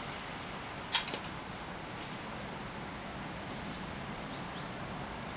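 Steady background hiss of room and outdoor ambience. A few sharp clicks come about a second in, the loudest a quick double, with another about two seconds in. Several faint, short high chirps follow near the end.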